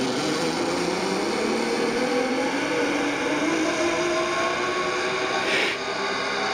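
Zip line trolley pulleys running along the steel cable, a whirring whine that slowly rises in pitch as the rider picks up speed, over a rushing hiss. A short burst of noise comes about five and a half seconds in.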